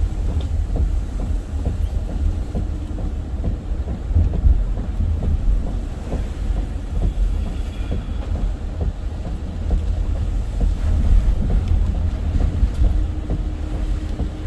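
Hurricane wind buffeting the microphone: a loud, fluttering low rumble with irregular thumps throughout.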